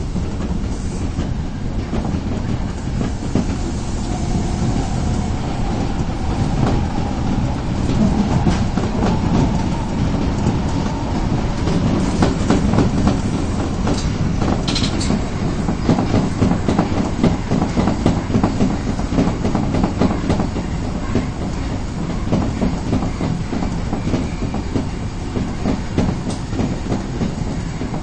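Osaka Metro Tanimachi Line train running between stations, heard from inside the car: a steady low rumble of wheels on rail with a rapid stream of clicks from the track.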